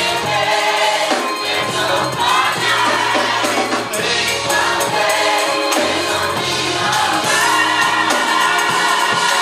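Gospel choir singing with band accompaniment, a steady beat of drums and tambourine.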